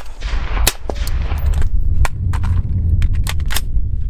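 Suppressed 5.56 AR pistol with an 8-inch barrel and a Wolfpack Armory Disruptor 556K suppressor, fired semi-automatically: about ten sharp shots in quick, uneven succession. A steady low rumble runs under them.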